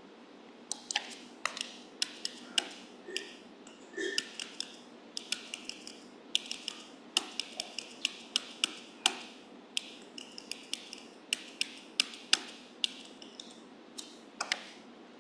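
Sharp, irregular clicks from a laptop being worked by hand to page through presentation slides, a few a second in uneven clusters.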